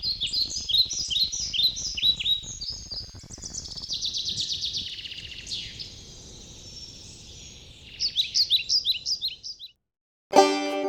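Songbirds singing: runs of quick, high, downward-sliding chirps and trills. Near the end the birdsong stops for a moment and plucked banjo music begins.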